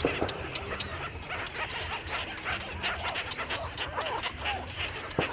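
A crowd of small birds chirping and chattering together, many short calls overlapping with little rising-and-falling notes, over a steady low hum.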